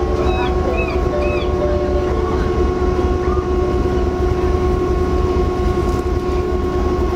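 Icebreaker sightseeing ship's engines running steadily, a deep rumble with a constant hum.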